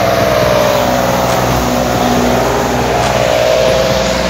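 Heavy dump truck driving past on a wet highway: diesel engine running and tyres hissing through water on the road, with a tone that falls in pitch as it goes by.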